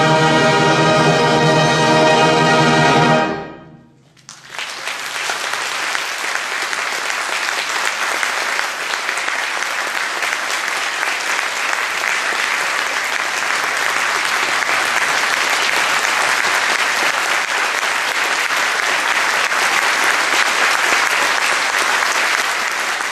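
A massed brass band holds its loud final chord for about three seconds and cuts off together. After a brief pause the audience breaks into steady, sustained applause.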